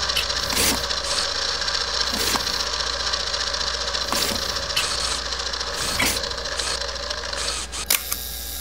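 Film projector sound effect: a steady mechanical whirr and clatter, with a sharper click about every two seconds.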